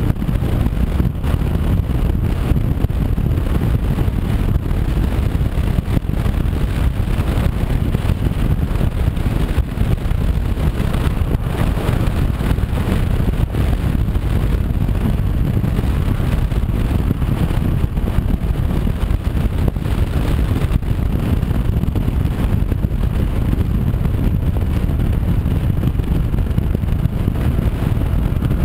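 Steady wind rumble on the microphone and road noise from a Honda CB500X motorcycle riding at speed, with the engine running underneath.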